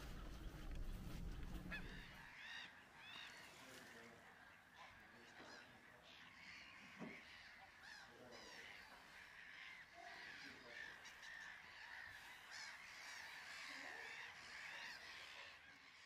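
Faint chorus of wildfowl calling: many short honking and chirping calls from geese and ducks overlapping.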